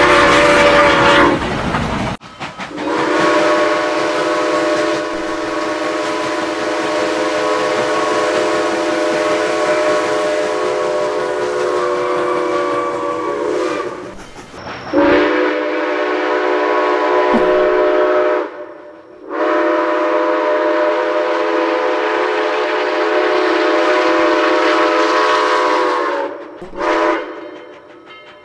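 Six-chime steam locomotive whistle, the 'Central of Georgia' chime on Southern No. 4501, blowing a chord of several steady tones in a series of blasts. A long blast lasts about twelve seconds, two more long blasts follow, and a short toot comes near the end. Train rumble runs under the first couple of seconds.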